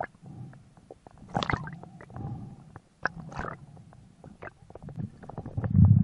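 Underwater noise picked up by the diver's camera as he swims upward: scattered clicks and knocks over a low rumble of moving water. The rumble is loudest just before the end.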